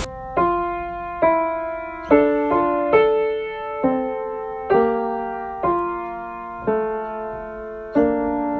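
Piano playing a slow melody, a note or soft chord struck about once a second, each ringing and fading before the next.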